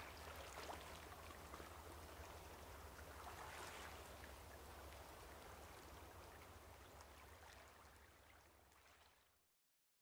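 Gentle sea waves lapping at a pebble shore, a soft wash of water with small trickling ticks among the stones, fading out in the last few seconds.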